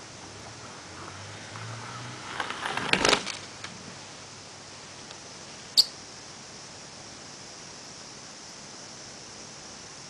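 Small wooden toy car with wooden wheels bumping and rattling into a pile of folded paper slips: a short burst of clattering and rustling two to three seconds in. One short, sharp high click follows near six seconds, over steady hiss.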